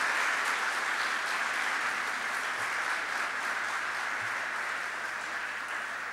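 Audience applauding steadily, easing off slowly toward the end.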